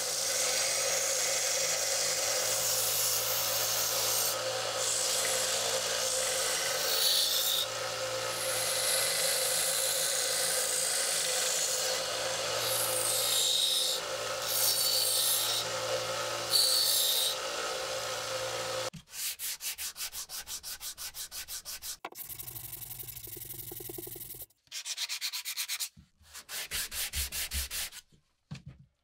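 A 1-inch by 30-inch belt and 5-inch disc combination sander runs with a steady hum while a wooden handle is pressed against it, grinding and hissing as the wood is shaped. About two-thirds of the way in the machine stops, and hand sanding takes over: a sanding block rubs the handle in rapid back-and-forth strokes.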